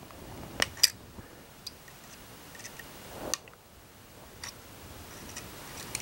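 Hemostats clamping and twisting LED leads on a wooden control panel: a few sharp metallic clicks, the loudest two close together just under a second in and more spaced out after, over light handling rustle.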